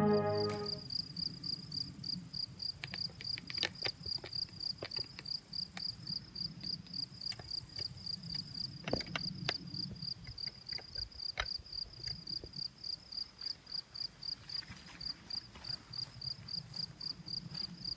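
A cricket chirping steadily at about three short high chirps a second, over a faint steady higher hiss of other insects. A few faint clicks are scattered through the first half.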